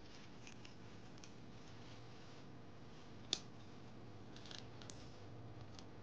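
Faint crinkling and ticking of folded red origami paper strips being bent by hand, with one sharp paper snap about three seconds in.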